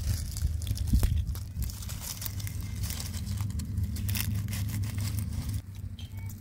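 Hands plucking wild greens from grass: rustling and crisp snapping and tearing of stems and dry leaves in quick irregular crackles, over a steady low rumble.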